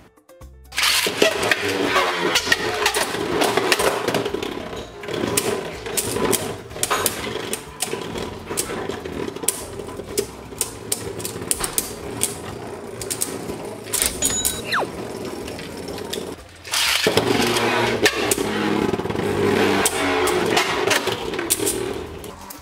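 Glide Satan and World Spriggan Beyblade Burst tops spinning in a plastic stadium: a rattling whir with rapid sharp clicks as they scrape and collide. It starts about a second in, drops out briefly about three-quarters of the way through, and starts again louder.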